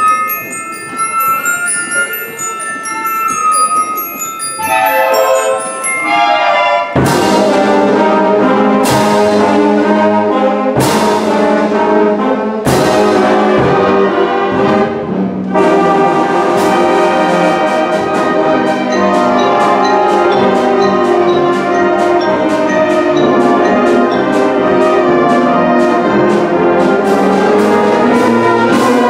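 Middle school concert band playing: soft held notes with high bell-like mallet notes at first, then a quick run, and about seven seconds in the full band enters with four loud brass-and-drum hits about two seconds apart before settling into a steady, loud passage.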